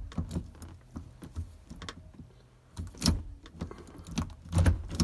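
B&M shifter lever being worked through its gear gates: a series of sharp clicks and clunks spaced irregularly, the loudest about three seconds in and near the end.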